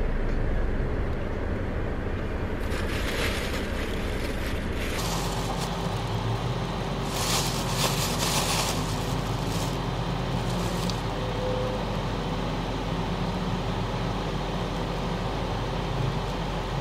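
Car engine idling, heard from inside the cabin as a steady low hum. Plastic bag rustling twice, briefly about 3 seconds in and again around 7 to 9 seconds in.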